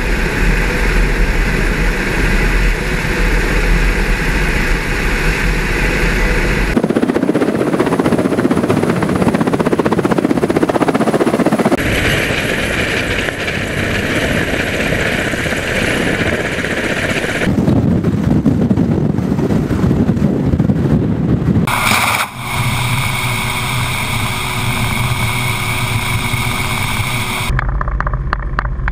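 Kamov Ka-52 attack helicopters running: the thrum of coaxial rotors and whine of turboshaft engines, heard close by on the ground and passing low, then from inside the cockpit in flight. The sound changes abruptly several times.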